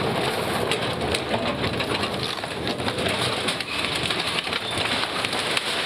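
Wooden kiosks being knocked down by a tracked excavator: a continuous run of cracks, snaps and crunching as the timber boards and frames splinter and collapse.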